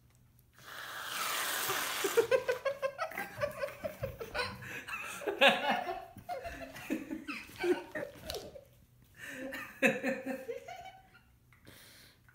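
An aerosol can of whipped cream sprays with a hiss for about a second and a half, starting about half a second in. Laughter follows in short bursts and fades out near the end.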